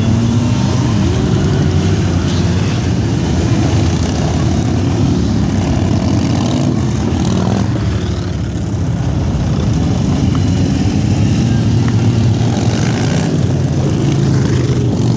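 A stream of motorcycles riding past one after another, sportbikes and cruisers mixed, their engines making a loud, continuous drone whose pitch shifts as each bike goes by.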